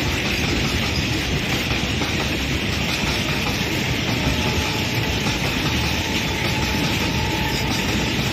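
Loaded double-stack container freight wagons rolling past at speed: a steady rumble and rail noise from the wheels on the track, with clickety-clack of wheels over the rail joints. A faint thin whine rises out of it for a few seconds in the middle.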